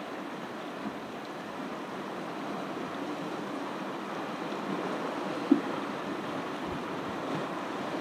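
Ocean surf washing steadily onto the beach, an even rush of waves. A short thump stands out about five and a half seconds in.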